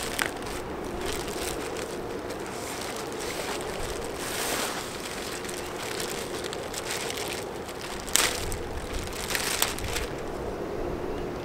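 Plastic packaging crinkling and rustling as a shipping mailer and a clear plastic bag are cut open with a folding knife and pulled apart, with a few louder crackles near the end.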